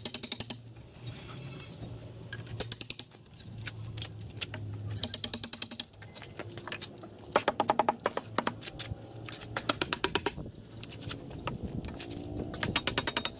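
Short runs of rapid hammer taps, about ten a second, on a steel wedge driven into the seams of a large plastic pot mould. The wedge is prying the mould panels off a cast concrete planter to demould it.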